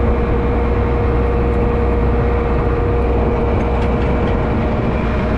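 Combine harvester running steadily: a low engine rumble with a steady mid-pitched whine over it.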